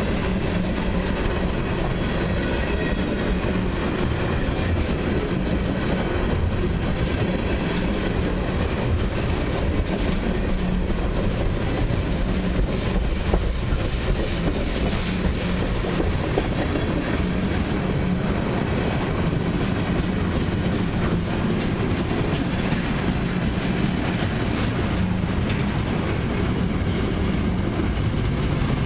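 Freight cars and autoracks of a long freight train rolling steadily past, steel wheels clicking over the rail joints.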